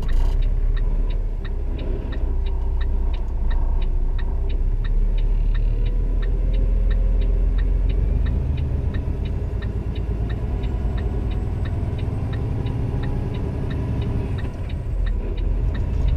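Heavy truck's diesel engine running at low speed, heard as a steady low rumble inside the cab, with a quick, even ticking of the turn-signal flasher over it.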